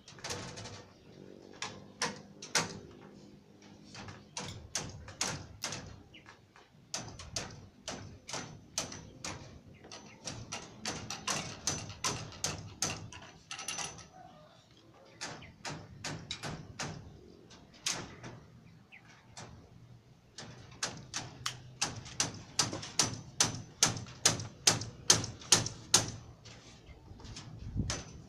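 Repeated sharp knocks of a hammer on steel rebar, each with a short metallic ring, coming in runs of two to three blows a second and loudest in the last few seconds.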